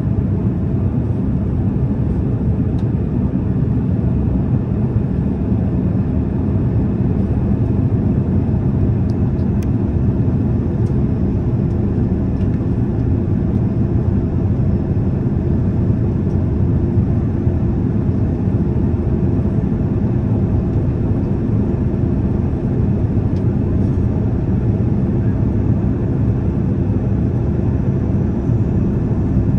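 Steady low roar of jet engines and rushing air heard inside an airliner's passenger cabin, with a faint steady hum running through it.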